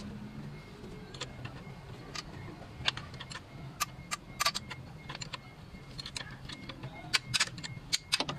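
Scattered sharp metallic clicks and clinks of hand tools on the alternator mounting bolts of a Proton Wira 1.5 as they are undone. The clicks come in quick clusters around the middle and near the end, over a low steady hum.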